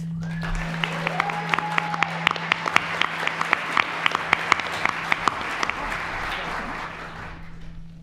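Audience applauding, a crowd's dense clapping with a few loud, sharp claps standing out, dying away about a second before the end.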